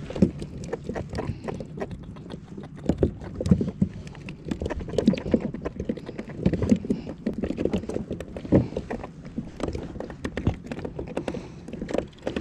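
Irregular knocks, taps and occasional heavier thuds on the plastic hull of a fishing kayak, coming several a second.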